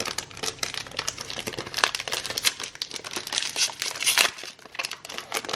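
Wrapper of a trading-card pack being torn open and crinkled in the hands: irregular crackling and tearing.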